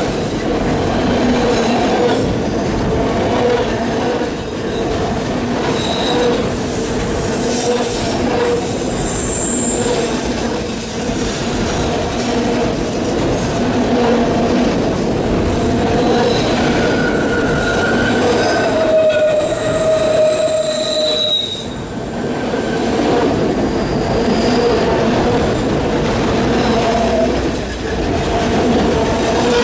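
Auto-rack freight cars rolling past close by: a steady rumble of steel wheels on rail with high-pitched wheel squeal that comes and goes.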